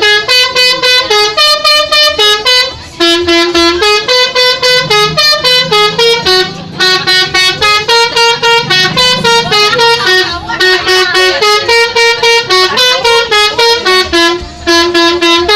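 Bus telolet horn, a set of electrically switched air horns, playing a fast staccato melody of short notes, about four or five a second, with brief breaks every three or four seconds.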